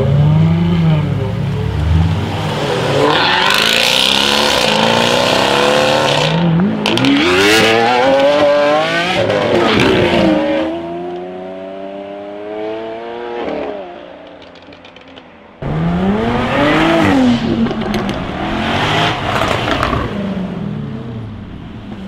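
Jaguar F-Type SVR's V8 revving and accelerating hard, its pitch climbing and dropping back through several upshifts. Partway through it settles to a steadier, quieter engine note, then a cut brings another run of hard revving and acceleration.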